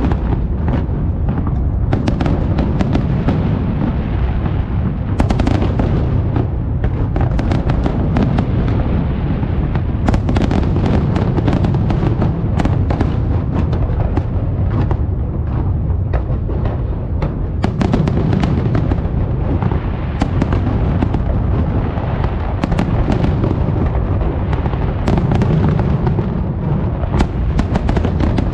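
A fireworks display with shells bursting in quick succession: a continuous deep rumble of booms overlapping, with many sharp cracks and crackles on top.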